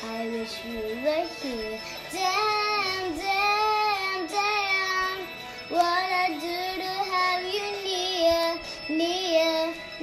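A young girl singing a melody without words, holding long notes that rise and fall, with short breaks between phrases.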